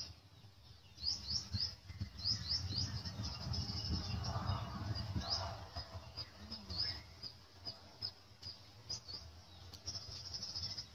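Small birds chirping: many short, high chirps in quick runs, thickest about one to three seconds in and again near the end.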